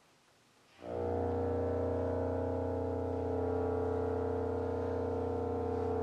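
Bass clarinet and bassoon duo entering together after a pause, about a second in, on a long, low, steady sustained note.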